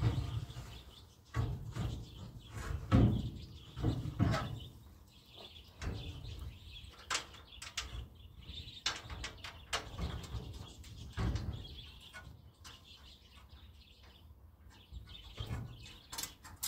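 A radiator being worked by hand down into a steel radiator support: irregular knocks, bumps and short metal scrapes, with birds chirping in the background.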